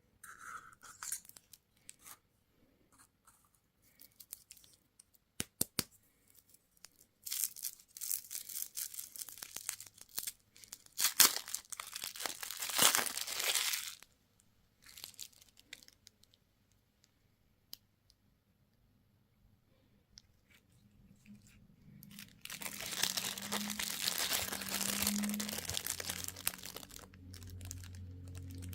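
Candy packaging being torn open and crinkled, in three rushes of tearing, the last and longest one near the end, with scattered light clicks and handling noises between.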